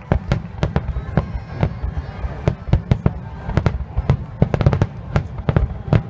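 Fireworks finale barrage: aerial shells bursting in quick succession, several sharp bangs a second at irregular intervals over a continuous low rumble.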